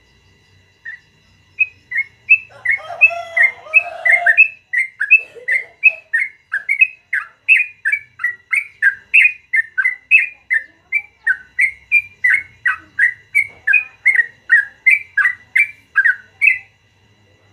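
Yellow-vented bulbul (trucukan) singing a long, fast run of short chirping notes, about three a second. A lower, denser call overlaps briefly a few seconds in.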